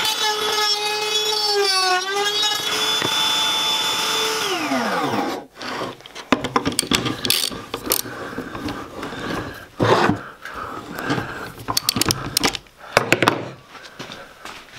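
Table-mounted router running with a steady high whine, its pitch dipping briefly under load about two seconds in as it cuts a channel in plywood. It is switched off a little over four seconds in, and its pitch falls as it spins down. After that come scattered clicks and knocks as the workpiece is handled and a hex key turns the router lift.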